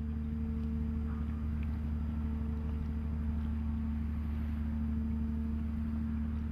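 An engine running steadily: a low, even drone with a constant hum, no change in pitch or level.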